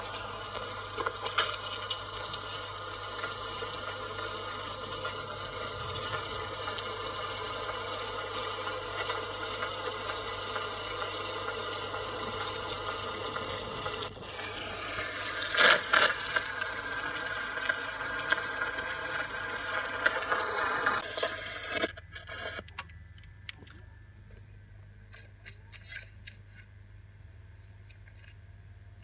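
Steady hiss with faint steady tones: the playback audio of a Sony BVW-35 Betacam SP portable video recorder, heard through a Sony CRT television's speaker. There is a sharp click about halfway through, and about three-quarters of the way through the hiss cuts off suddenly, leaving only a few faint clicks.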